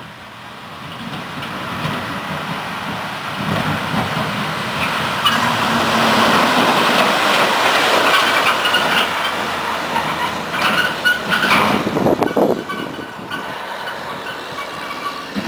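1988 Mack RD688S tri-axle dump truck driving past, its diesel engine growing louder as it approaches. It is loudest and most uneven as it goes by, then fades away.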